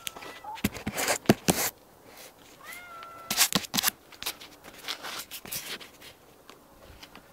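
A domestic cat meows briefly a couple of times, the clearest call rising in pitch about three seconds in, among loud scraping and knocking as a foam insulation board is handled.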